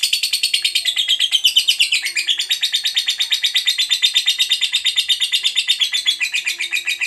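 Lovebird ngekek: one long, unbroken run of rapid, sharp, high chattering notes. This is the long ngekek that fanciers prize in fighter lovebirds.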